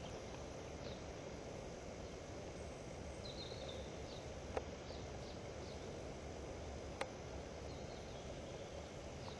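Woodland ambience: a steady hiss with faint, high bird chirps, broken by two sharp clicks, one about halfway through and one about two and a half seconds later.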